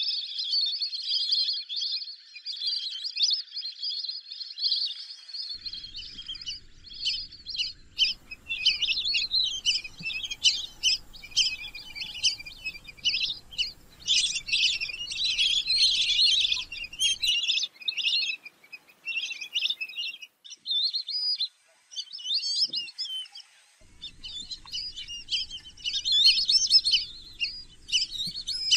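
A flock of lesser whistling ducks calling: a dense chorus of high, thin whistles running together into many quick short notes, with a short lull about two-thirds of the way through.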